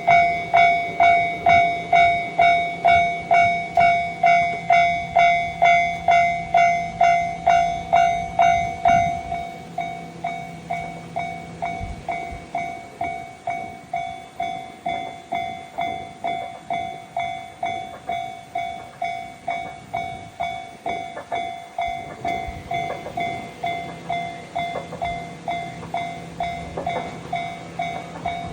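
Japanese level-crossing warning bell ringing its steady "kan-kan", about two strikes a second. It is loud for the first nine seconds or so, then carries on noticeably quieter.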